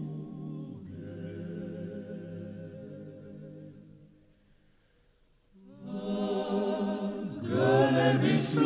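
Vocal music: a choir singing slow, held notes. The voices fade almost to nothing about four seconds in, then come back in and swell louder near the end.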